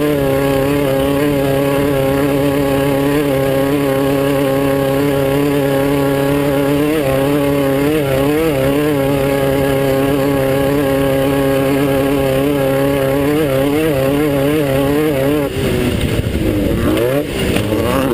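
Class 9 off-road race car's engine running hard at fairly steady revs, its pitch wavering slightly with small throttle changes. Near the end the revs drop, then rise and fall repeatedly as the throttle is worked.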